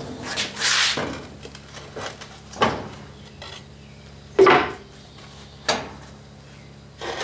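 A rammed-up sand-mold drag being flipped over on its molding board: a short scrape and then several separate wooden and metal clunks as the flask is turned and set down, the loudest about four and a half seconds in.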